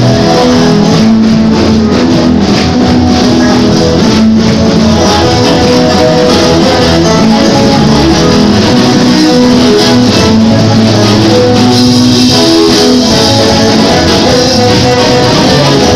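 Loud live church praise music with guitar, playing steadily throughout.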